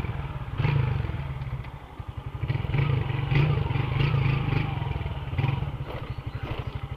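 Motorcycle engine running as the bike rolls to a stop, then idling with a steady, even pulse from about two seconds in, with a few light clatters over it.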